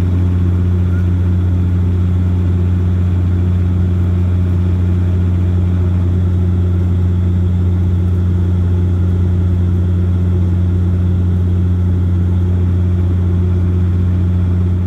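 Steady low drone of a Bombardier Q400's turboprops and six-bladed propellers heard inside the cabin next to the propeller during the climb after takeoff: one low hum with a second tone above it, over a constant rush of air noise.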